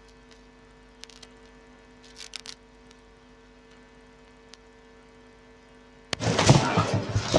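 Steady electrical hum from a public-address sound system, with a few faint clicks, then about six seconds in a sudden loud burst of rustling and thumping as the gooseneck microphone is handled.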